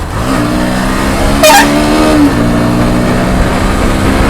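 Bajaj Pulsar NS 125's single-cylinder engine revving under hard riding in traffic: the engine note climbs in the first half second, holds, then drops about two seconds in. A short high-pitched sound cuts in about a second and a half in.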